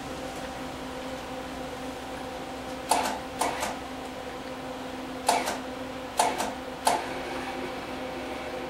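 Lincoln Handy MIG welder arc striking in short sputtering bursts, about seven over four seconds, over a steady electrical hum. It is sparking instead of laying a proper weld, a sign of the welder's faults.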